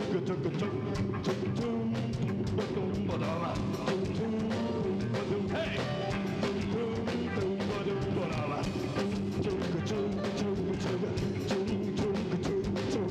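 Live rock and roll band playing, with a steady drum-kit beat under electric guitar, bass and keyboard; a voice sings at times.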